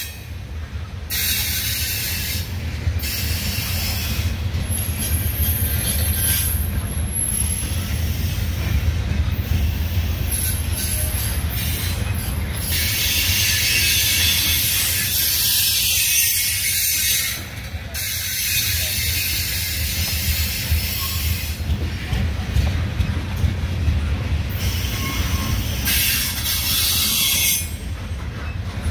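Freight train of grain cars rolling past: a steady low rumble of steel wheels on rail with a high hiss that comes and goes and brief high wheel squeal.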